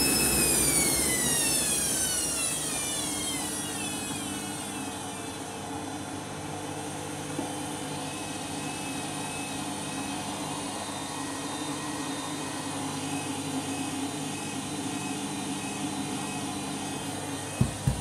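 Candy Grand'O Vita front-loading washing machine winding down from a spin: the motor's whine falls steadily in pitch over the first four seconds and the sound drops, leaving a steady lower hum of the drum turning in sudsy water. A few knocks near the end.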